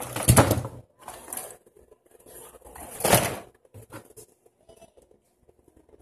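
Gloved hand brushing across a wooden board, two loud swishes about three seconds apart with a few lighter rubs between.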